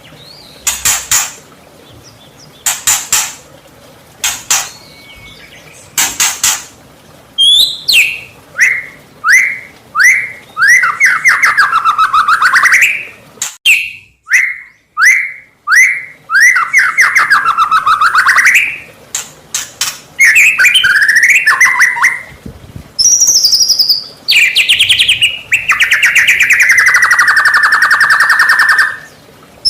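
White-rumped shama (murai batu) singing loudly in varied phrases: a few harsh rasping notes at the start, then runs of quick downward-slurred whistles at about two a second, and a long falling then steady buzzing trill near the end.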